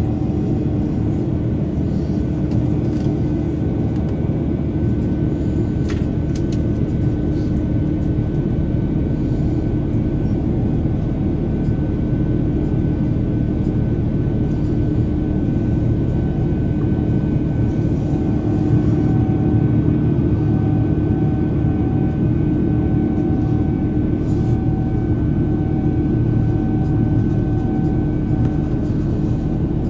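Steady cabin drone of an Airbus A330-900neo climbing after takeoff: the Rolls-Royce Trent 7000 engines and the rush of air along the fuselage, with a steady hum running through it.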